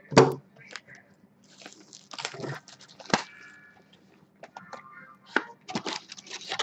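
Clear plastic shrink-wrap being torn off a cardboard trading-card box and crumpled: a run of crinkling crackles and rustles with sharp snaps, the loudest just after the start.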